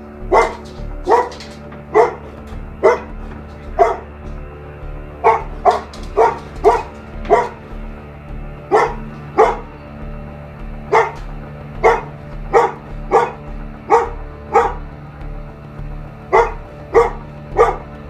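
A dog barking over and over, about one bark every two-thirds of a second in runs with a few short pauses, over background music with a steady bass beat.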